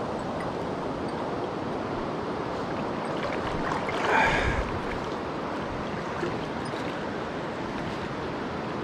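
Mountain stream rushing steadily, with a brief louder sound about four seconds in.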